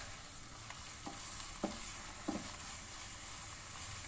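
A utensil stirring and scraping thick bottle gourd halwa in a pan over low heat, with a faint steady sizzle of ghee. Three light knocks of the utensil against the pan fall between about one and two and a half seconds in.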